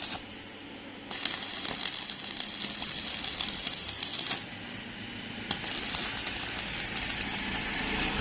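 Electric arc welding crackle: a dense, spitting hiss full of fine clicks, stopping and starting abruptly a few times.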